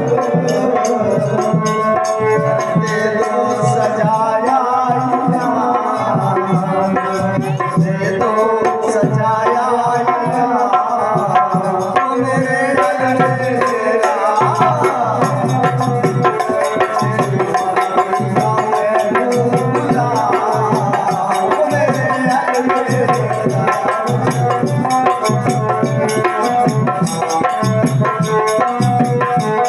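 Indian devotional music: a melody over a steady drum beat, without a break.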